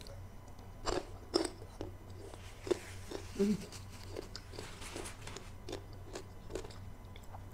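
Crisp slices of unripe green mango being bitten and chewed: a string of short, irregular crunches.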